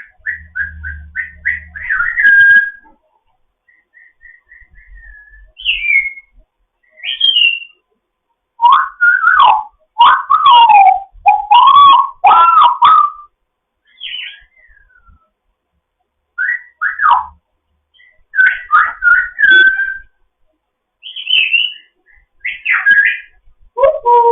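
African grey parrot whistling and calling: a quick run of short repeated whistle notes at the start, then bursts of falling and rising whistled glides and sharp calls, separated by short pauses.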